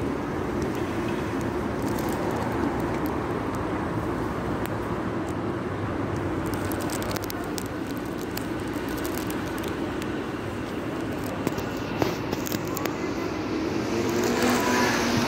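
Steady street traffic noise, with one short knock late on and a vehicle growing louder near the end.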